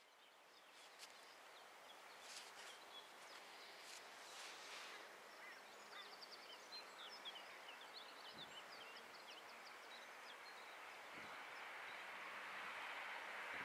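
Faint quiet lineside ambience with birds chirping. Over the last few seconds a broad rumbling hiss slowly grows, a train approaching in the distance.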